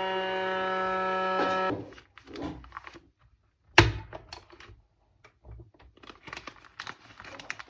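Vacuum cleaner motor running with a steady buzzing hum, switched off about two seconds in. Then come scattered clicks and handling knocks, with one sharp thunk about four seconds in.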